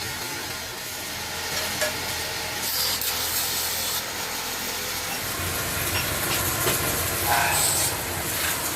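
Steady rubbing noise of metal being worked on a tea kettle in a workshop, with no distinct hammer blows.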